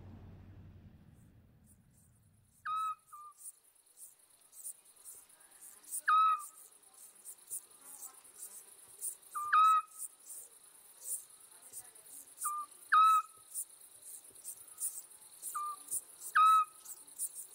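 Night ambience: a small owl gives a short single whistled hoot five times, about every three and a half seconds, over a steady high chirring of crickets. A low rumble fades out in the first two seconds.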